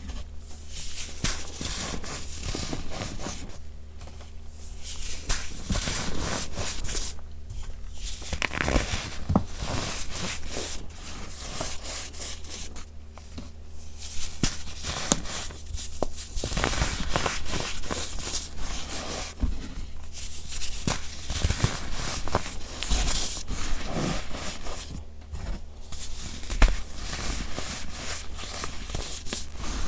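Gritty baking soda being squeezed and crumbled close to the microphone: a dense, uneven run of small crunches and squeaks, with a few brief lulls.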